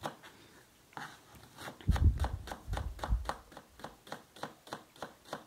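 Kitchen knife slicing a red onion on a plastic cutting board: a quick, even run of sharp chopping taps as the blade strikes the board, starting about a second in.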